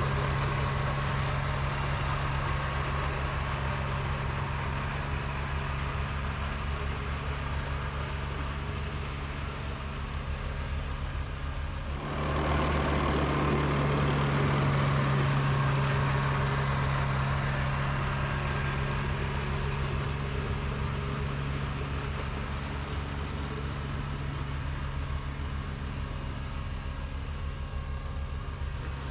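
Kubota BX2230D compact tractor's three-cylinder diesel engine running steadily. About twelve seconds in it gets suddenly louder, with a rushing noise added, and this eases off gradually.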